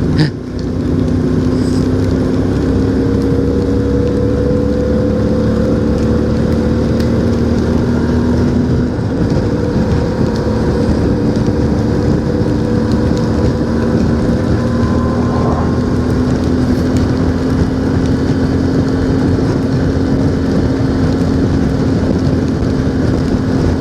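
CFMOTO 450MT's parallel-twin engine running at a steady cruise, with constant wind and road noise. The engine note dips slightly about nine seconds in, then slowly climbs.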